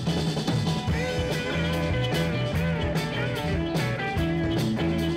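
A live rock band plays: electric guitar with bending, sliding lead notes over a steady bass line, drum kit and keyboard.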